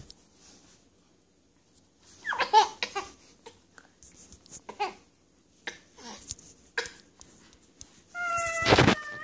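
A young girl's wordless vocal sounds and giggles, in short bursts with knocks from handling the phone, and a longer held call near the end.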